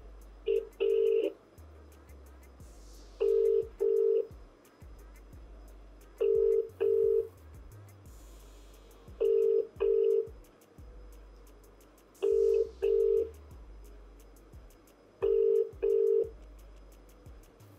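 Phone ringback tone through a phone's speaker: six double rings about three seconds apart, each a pair of short low beeps, as the called phone rings unanswered. Low background music runs underneath.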